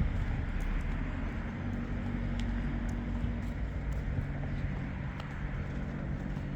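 Street noise while walking: a steady low motor hum, with faint scattered footsteps.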